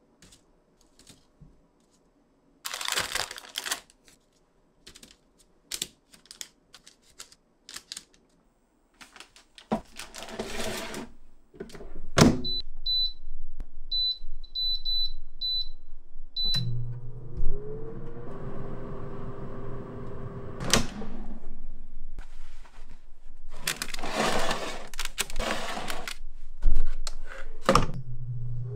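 Scattered clicks, knocks and rustling of handling. About halfway through, an iNic air fryer's touch panel gives a run of short high beeps as the temperature and time are set. Its fan motor then starts with a brief rising whine and runs with a steady hum.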